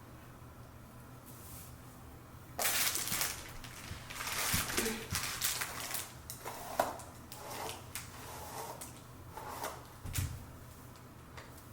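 Rustling and handling noises from a human-hair wig being handled close to the microphone: irregular bursts of rustling with a few light knocks, starting a little over two seconds in and dying away near the end.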